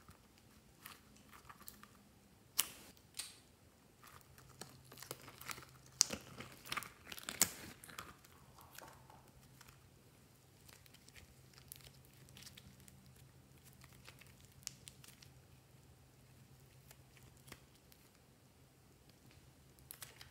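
Slime being pressed, stretched and mixed by hand, giving faint sticky crackles, clicks and squelches, busiest in the first eight seconds and sparser after.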